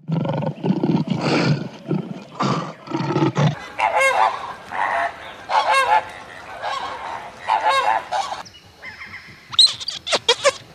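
A lion growling in a series of low grunts, then a flock of flamingos honking, five loud calls about a second apart. Near the end come a few short, high squeaks.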